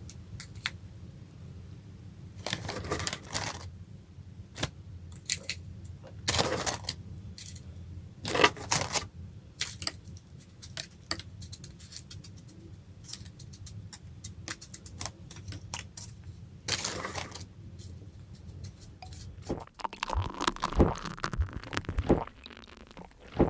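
Carbonated ice topped with shaved freezer frost being bitten and chewed close to the microphone: irregular loud crunches several seconds apart, with scattered small crackles and clicks between them. A steady low hum runs underneath.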